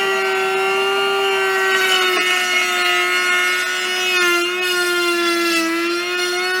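Router motor running at high speed with a steady high whine, its pitch sagging briefly a few times as the bit cuts a groove in wood.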